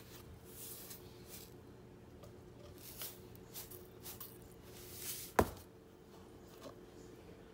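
Soft hissing rustles of salt being poured from a carton into a blender cup, over a steady faint hum. One sharp knock about five seconds in is the loudest sound.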